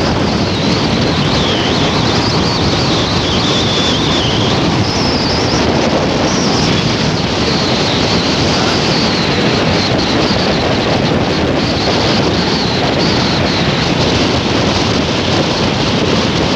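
Loud, steady wind rushing over the microphone of a moving vehicle, mixed with road and engine noise, with a faint wavering high whistle now and then.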